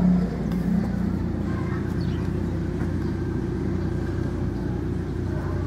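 Motor vehicle engine running nearby: a steady low rumble that eases off slightly just after the start, then holds even.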